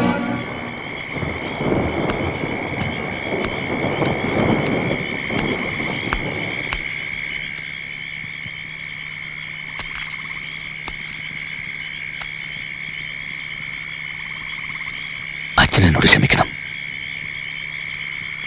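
Night chorus of frogs croaking and insects chirring steadily, with a brief louder sound about three-quarters of the way through.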